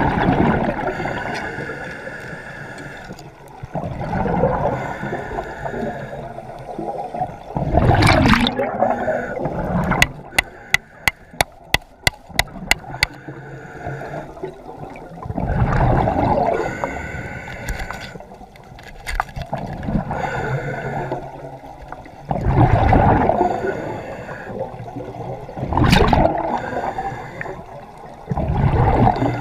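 Underwater sound as a spearfishing camera hears it: water rushing in repeated surges, over a faint steady high whine. About a third of the way in come about eight sharp clicks, two or three a second.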